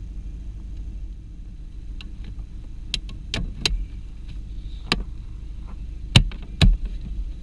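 Hands working on a Volkswagen's cabin air filter housing: a handful of sharp clicks and knocks over a steady low hum, the two loudest near the end.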